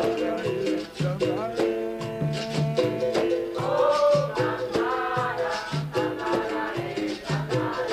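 Capoeira Angola music from the group's bateria, its percussion orchestra, with a steady drum beat, shaker and singing: a capoeira song about Dandara.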